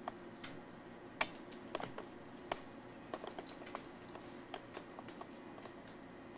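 Faint, irregular small clicks and taps, a dozen or so at uneven intervals, over quiet room tone.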